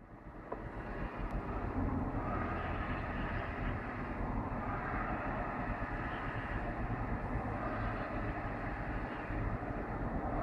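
Erupting mud volcano, with burning gas flaring beside a jet of mud, making a steady, deep rushing roar. The roar fades in over the first two seconds and then holds even.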